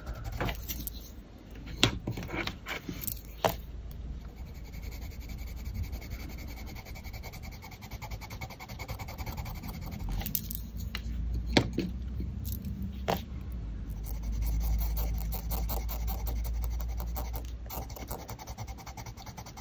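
Caran d'Ache Luminance colored pencil rubbing and scratching on paper as colour swatches are filled in, with a few sharp clicks.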